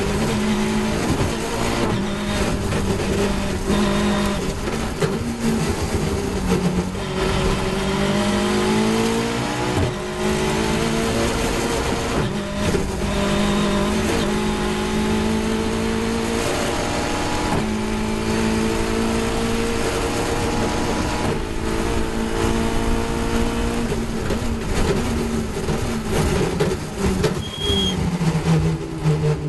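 Caterham 420R's four-cylinder Ford Duratec engine running hard at racing speed, its pitch climbing and breaking off at each gear change, with wind rushing over the open cockpit. Near the end the revs fall in steps as the car brakes and shifts down.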